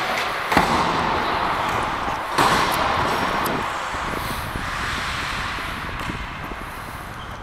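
Ice hockey play on the rink: a steady scraping haze of skates on the ice, broken by a few sharp knocks of stick, puck or boards, the loudest about two and a half seconds in.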